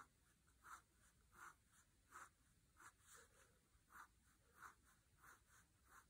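Faint, short pencil strokes scratching on paper, roughly one every two-thirds of a second: small lines being hatched in by hand to draw knurling.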